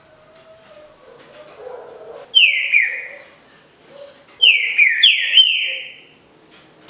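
Green-winged saltator (trinca-ferro) singing its 'canto liso Paraná' song: loud, clear whistled notes, each sliding downward, in a short two-note phrase about two and a half seconds in and a longer run of about four notes from about four and a half seconds in.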